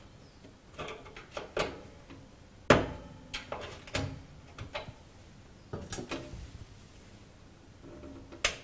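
Scattered metallic clicks and knocks of a Hoover oven door's hinge catch being worked forward and locked down, with a sharp knock about two and a half seconds in and another near the end.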